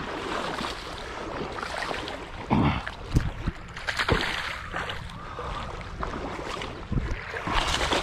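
Hooked smallmouth bass thrashing and splashing at the surface of shallow creek water as it is brought in, with several sharp splashes over a steady wash of noise.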